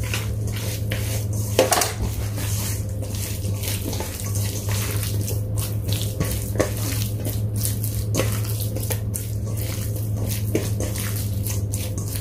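Raw chicken breast pieces being squeezed and mixed with corn flour by hand in a stainless steel bowl: irregular wet squishing with scrapes against the metal and a couple of sharper knocks, over a steady low hum.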